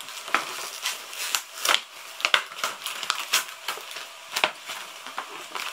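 Plastic food packaging crinkling and crackling as a printed label is peeled off the packet, in irregular sharp crackles and snaps.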